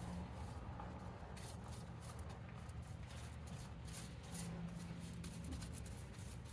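Soft, irregular strokes of a paintbrush dabbing and spreading thick acid etching cream over the case panel, faint, over a low steady hum.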